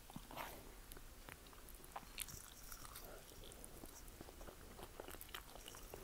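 Faint close-up eating sounds: a woman chewing and slurping spicy instant noodles, a string of small wet mouth clicks and smacks.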